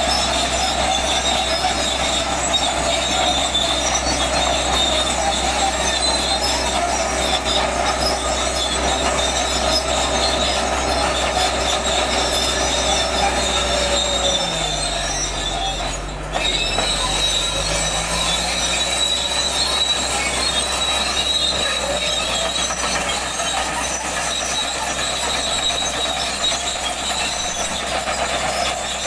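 Caterpillar D8 crawler tractor's diesel engine running steadily under heavy load as it pulls a deep plough through soil, with its steel tracks squealing and clanking.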